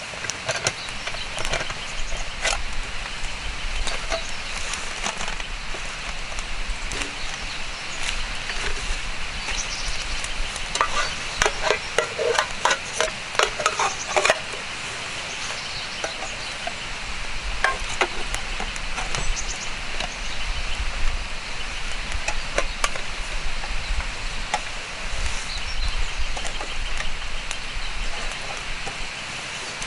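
Wood fire crackling, with irregular sharp pops over a steady hiss; the pops come thickest about a third of the way in, then thin out.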